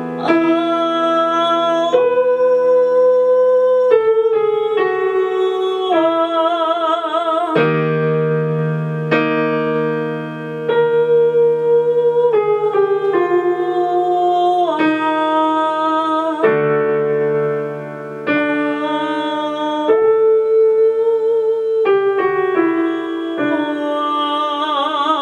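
A woman singing a vocal exercise on "a" and "u" vowels, linking chest voice and head voice, with vibrato on the held notes. Electric keyboard chords accompany her.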